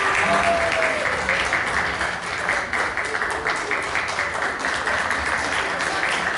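Audience applauding, a dense steady clapping, with the last of the music dying away in the first second.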